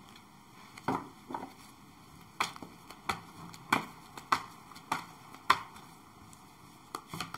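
Tarot cards being shuffled by hand: a series of sharp card clicks, roughly one or two a second.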